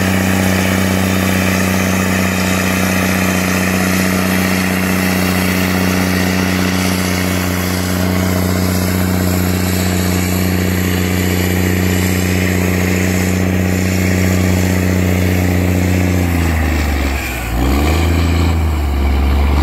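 Big diesel engine of a giant articulated four-wheel-drive tractor pulling a wide tillage implement, running with a loud, steady low drone under load. Near the end the engine note dips and wavers before steadying again.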